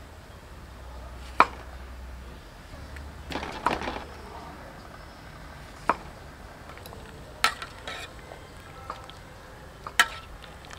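Cleaver chopping pumpkin on a round wooden chopping block: a handful of sharp, separate chops a second or two apart. Near the end comes one sharp clink of a metal ladle against an aluminium pot.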